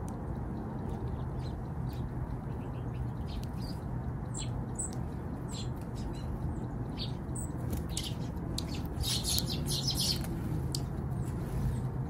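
Small songbirds at a ground feeding spot giving short, high chip calls, scattered through, with a quick flurry of chips about nine to ten seconds in, over a steady low rumble of background noise.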